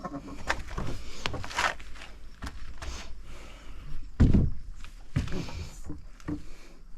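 Irregular clicks and knocks of hands working on equipment, with one heavy low thump a little past the middle.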